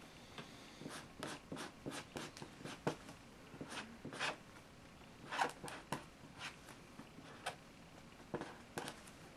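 Two felt-tip pens drawing on paper at once: a dozen or so short, irregular scratching strokes.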